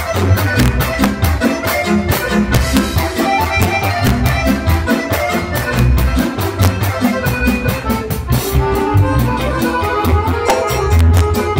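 Live band playing traditional music: an accordion carries the tune over a drum kit keeping a steady beat.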